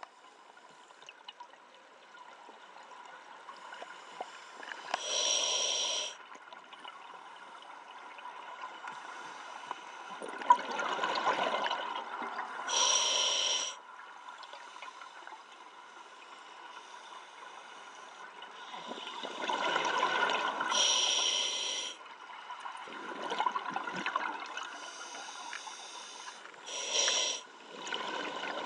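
Scuba diver breathing through a regulator underwater: four hissing inhales, roughly seven to eight seconds apart, with rushing bursts of exhaled bubbles between them.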